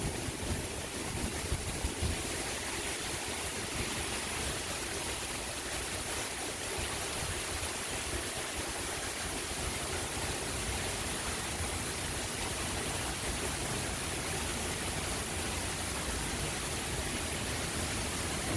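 Steady downpour of thunderstorm rain, an even hiss. The low rumble of thunder dies away in the first second or so.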